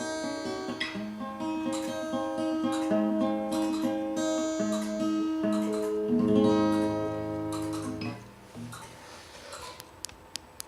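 Acoustic guitar playing the closing bars of a song, picked notes and strummed chords, stopping about eight seconds in; a few sharp clicks follow near the end.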